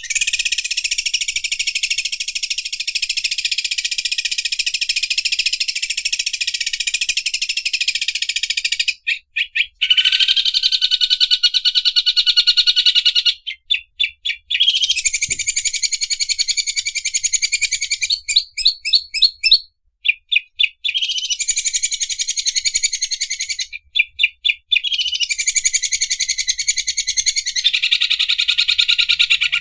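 Green leafbird (cucak ijo) singing its 'mesin obras' song: long runs of fast, buzzy rattling trill like an overlock sewing machine, several seconds each, broken by short pauses filled with a few quick separate chips.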